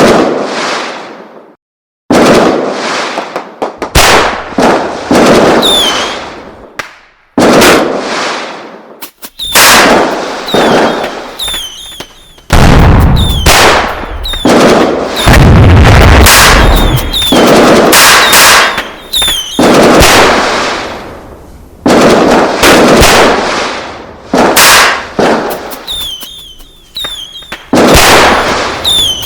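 A run of loud, sudden bangs and booms like fireworks and explosions, one every one to two seconds, each dying away in a long echoing tail. A deeper rumbling stretch comes about halfway through, and short high chirps follow several of the bangs.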